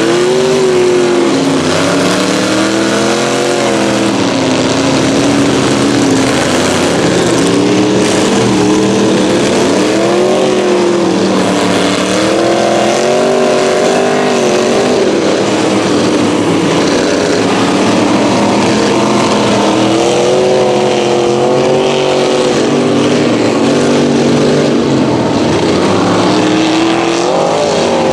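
Big mud-truck engines revving hard over and over, the pitch climbing and falling every few seconds, over the constant sound of more engines running.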